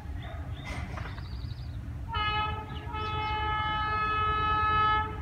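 Horn of a Pakistan Railways PHA-20 diesel locomotive sounding one long, steady blast about two seconds in that lasts about three seconds, over a steady low rumble.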